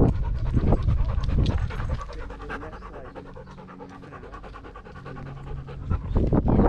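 A dog panting right at the microphone of a camera strapped to it, with light clicks over the breaths. The panting is strong for the first couple of seconds, softer through the middle, and strong again near the end.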